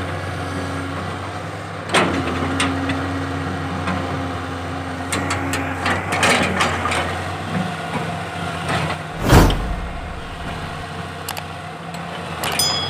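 Caterpillar 320C excavator's six-cylinder diesel engine idling with a steady low hum, a faint whine from about two to six seconds in, and scattered clicks and clanks. One heavy thud about nine seconds in.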